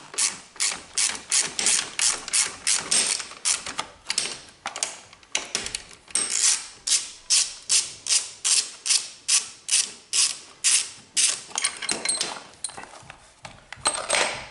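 Hand ratchet wrench with a 15 mm socket clicking through repeated back-and-forth strokes, about two or three a second, with a short pause about four seconds in, as it unscrews the seatbelt buckle's bolt.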